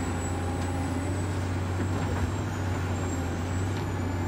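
Radio-controlled Hitachi excavator and dump truck models running, giving a steady low engine-like hum with a thin high whine over it as the excavator loads sand into the truck.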